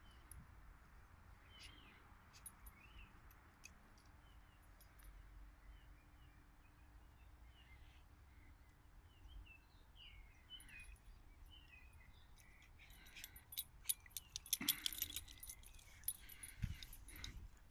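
Faint birdsong, short chirps heard on and off over quiet open air. About three-quarters of the way through, a brief run of clicking and jingling is the loudest sound.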